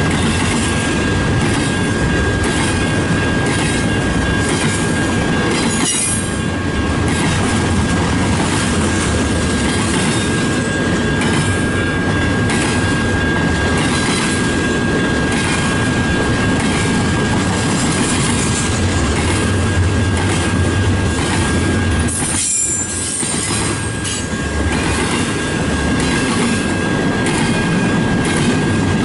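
CN freight train cars rolling past at close range, wheels clicking over the rail joints, with a steady high-pitched wheel squeal.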